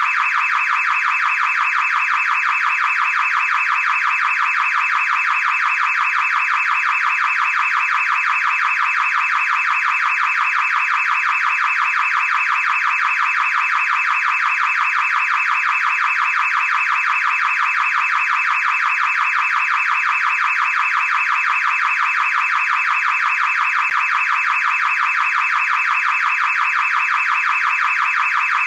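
Car alarm sounding without a break: a loud, high tone with a fast, even ripple through it.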